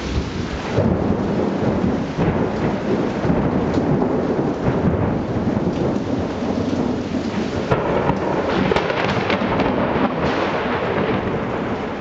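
Close thunder rolling and rumbling on, swelling about a second in and crackling again later, over steady rain.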